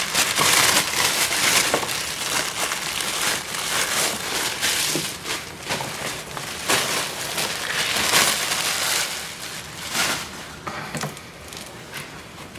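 Packaging being handled and pulled away, with irregular crinkling and crackling that thins out and gets quieter near the end.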